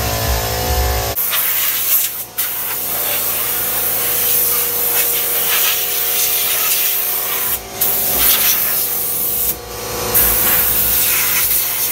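Music for about the first second, then a long-wand spray gun on an air hose hissing steadily into a stripped engine bay, with three brief pauses where the trigger is let go.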